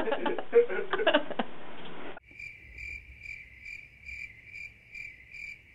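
Shower water spraying, with a man's voice, cuts off abruptly about two seconds in; then a cricket chirps steadily, about two high chirps a second.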